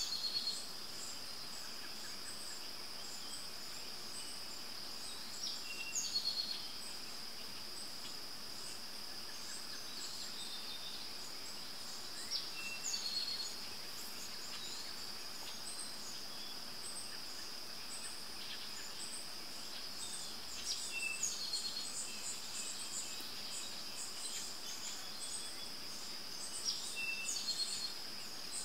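Steady high-pitched drone of insects, with a bird chirping in short groups about every seven seconds.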